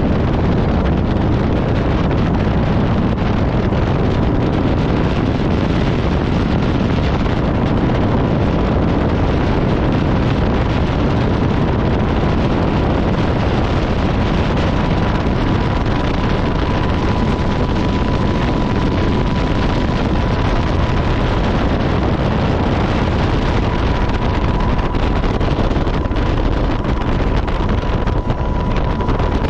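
Steady, loud wind noise buffeting the microphone, with a faint steady whine that grows clearer about halfway through.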